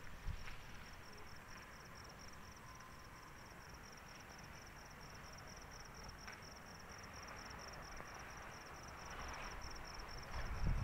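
Crickets chirping faintly in a steady, evenly pulsed high trill, with a low rumble underneath that grows louder near the end.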